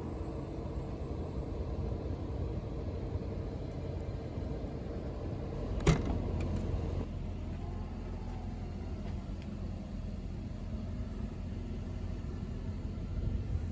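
Steady low vehicle rumble with a faint hum, broken by a single sharp click about six seconds in.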